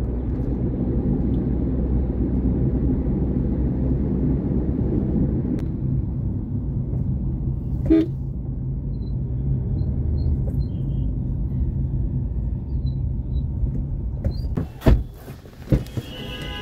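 Steady engine and road rumble inside a moving car's cabin, with one short car horn toot about halfway through. Near the end the rumble drops away and a couple of sharp knocks follow.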